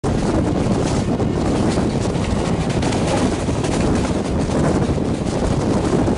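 Steady loud rumble with wind buffeting the microphone; no horn sounds.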